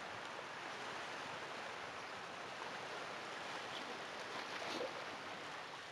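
Small waves washing up on a sandy shore: a steady hiss of surf that swells briefly about five seconds in.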